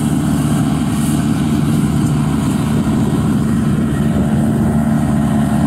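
Diesel engine of a Yanmar AW82 combine harvester, fitted with a Hyundai turbocharger, running steadily under load while it cuts rice. The exhaust note is loud and deep.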